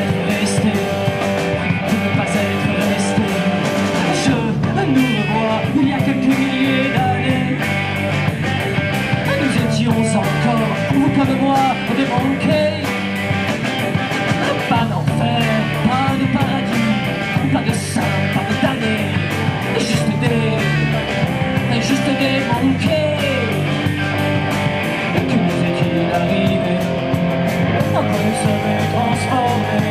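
Live rock band playing: electric guitars and a drum kit, with a lead voice into the microphone.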